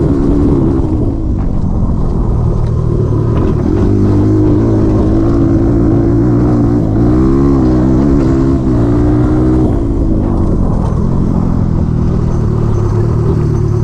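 Honda XR200R's single-cylinder four-stroke engine running as the dirt bike is ridden. Its pitch rises and falls with the throttle, with a wavering climb and drop about seven to nine seconds in.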